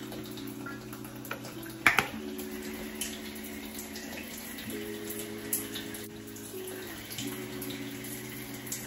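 Shower running, a steady hiss of water, with soft background music of slow sustained chords changing every few seconds. Two sharp clicks about two seconds in are the loudest sounds.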